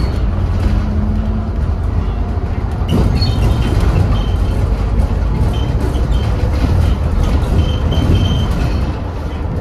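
Scania N230UD double-decker bus on the move, heard from inside on the upper deck: the steady low drone of its five-cylinder diesel and road rumble. A few faint short high tones come in about the middle.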